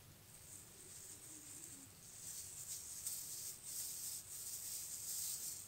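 Thin plastic food gloves rustling and crinkling while a strawberry is sliced by hand with a knife, in faint, uneven scratchy patches that grow louder about two seconds in.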